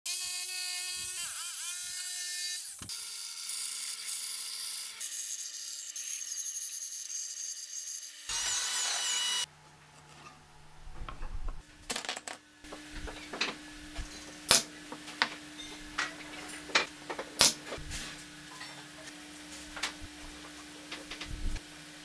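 A corded jigsaw cutting pallet wood, its motor pitch dipping briefly under load, followed by more power-tool running in several short stretches. From about ten seconds in, the tool stops and scattered sharp knocks and clacks follow as wooden strips are handled and set down on a workbench.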